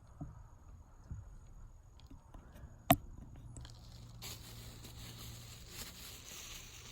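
Camera being handled and set down: faint rustling and small knocks, with one sharp knock about three seconds in, then a steady hiss from just after four seconds.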